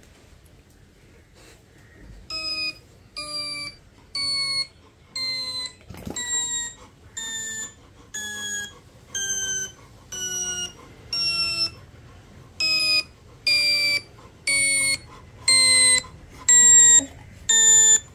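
A repeating electronic tone, one clean note roughly every second, each note stepping a little lower in pitch than the last. The run starts about two seconds in, steps down over about ten notes, then starts again at a higher pitch and steps down again.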